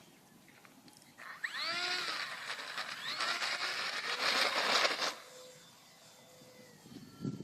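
Mini T-28 Trojan RC plane's electric motor and propeller whining past on a low pass. It comes in about a second in with a quick rise in pitch, buzzes loudly for about four seconds, then falls away.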